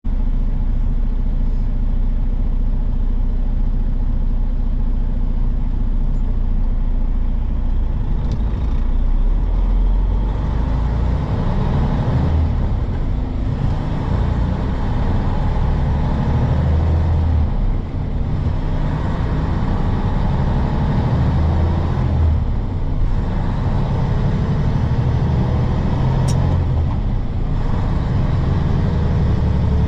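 Semi truck's diesel engine running in the cab: a steady low note at first, then dipping and climbing again several times, about every four to five seconds, as the driver shifts through the gears.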